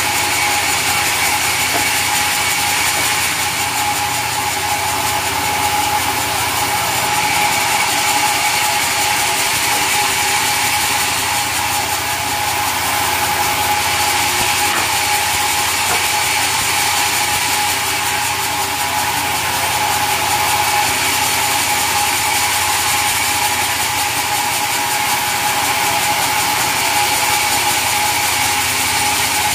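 Sawmill machinery running steadily: a loud, constant mechanical din with a steady whine that does not change.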